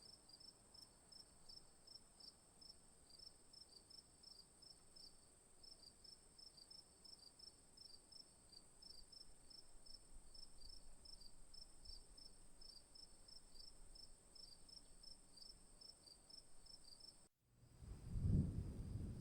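Crickets chirping: a steady high trill with evenly repeating chirps over it, a few a second. About seventeen seconds in it cuts off, and a louder low rumble begins, the start of a storm effect.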